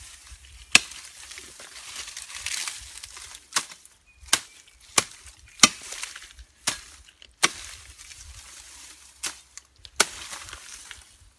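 A hand-held blade chopping grass stems close to the ground: about nine sharp strikes at uneven intervals, with grass rustling between them as it is gathered.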